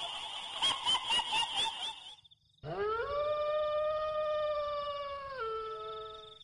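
A high warbling chatter for about two seconds, then after a brief gap one long dog-like howl that rises at the start, holds steady, drops a step in pitch and fades out.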